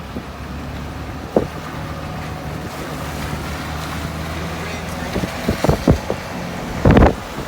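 Car cabin noise while driving: a steady low engine and road hum. A single thump comes about a second and a half in, a few knocks follow about five to six seconds in, and a louder rush comes near the end.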